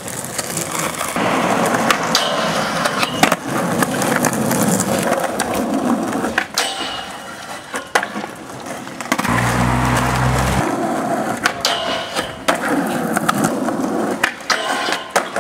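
Skateboard wheels rolling over rough asphalt, broken several times by sharp clacks of the board popping and landing.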